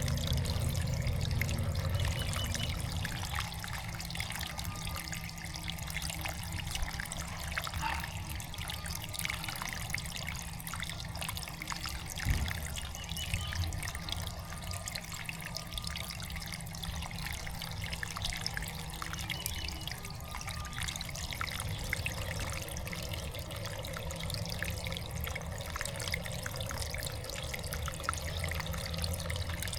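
Water trickling steadily in a backyard bird bath's water feature, with a steady low rumble underneath.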